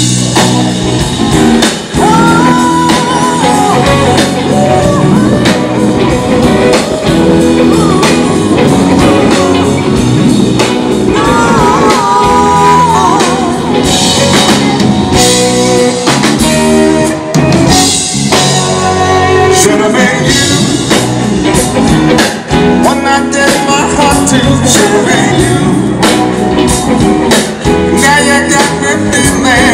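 Live blues-rock band playing through PA speakers: electric guitars and drum kit, with a singer's voice over them.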